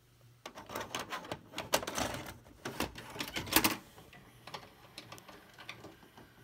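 VHS cassette being handled and loaded into a VCR: a fast run of plastic clicks and clatter, then scattered single clicks as the deck takes the tape and starts playing.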